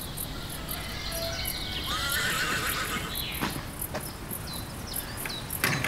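A horse whinnying once, about two seconds in.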